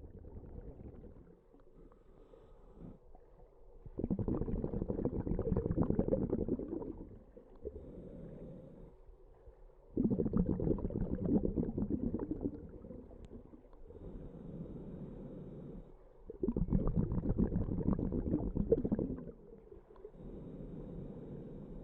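A diver breathing underwater through a scuba regulator, slow and even. Three times, a loud burst of exhaled bubbles bubbles up for about three seconds, with quieter inhaling between.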